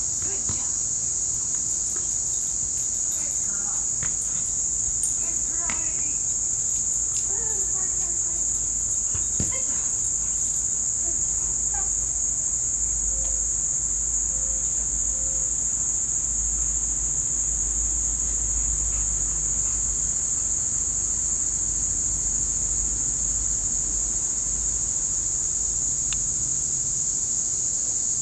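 Steady, high-pitched chorus of singing insects, unbroken and even in level.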